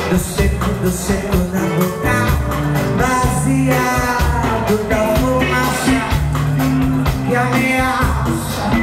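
Live band music from drums, electric bass, guitar and keyboard, with a singer's voice carrying held, wavering notes over the band from about two seconds in.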